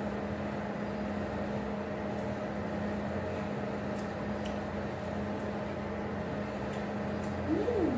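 Steady appliance hum with a constant low tone and an even hiss. Near the end a voice gives a short hummed 'mm' that rises and falls in pitch.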